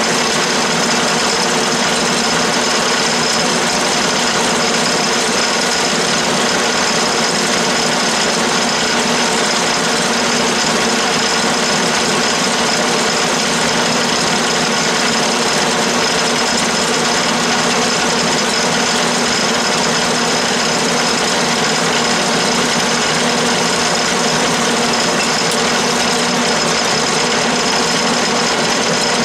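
12-inch Atlas/Craftsman lathe running steadily under power longitudinal feed while a round-nose tool turns a taper on 3/4-inch aluminum bar. A steady mechanical whine of several tones over a noisy hum.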